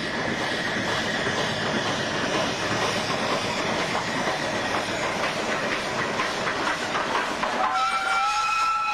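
Steam locomotive hauling a passenger train past at speed: a loud running rush with rapid clatter of wheels on the rails, and a faint steady high tone at first. Near the end the train noise drops away sharply and a steady tone on several pitches sets in.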